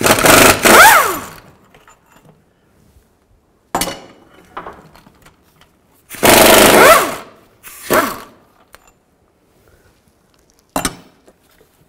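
Impact wrench hammering the two starter bolts loose with a 13mm socket, in two sets of short, loud bursts, each burst a couple of rapid pulses about a second long. Two sharp single knocks come in between and near the end.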